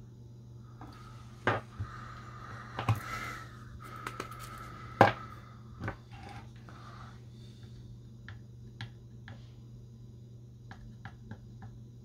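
Small tools and a solder paste tin being handled and set down on a wooden workbench: a few sharp knocks, the loudest about five seconds in, then lighter ticks, over a steady low hum.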